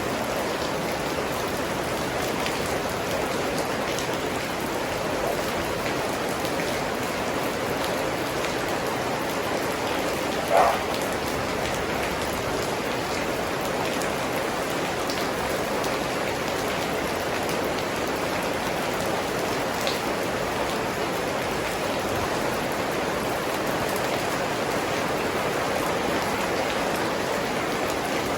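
Steady rain falling, with scattered individual drops ticking. About ten seconds in there is one brief, louder sound.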